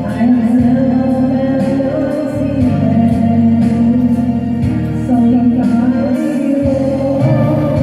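A woman singing into a microphone over an amplified karaoke-style backing track with a steady beat.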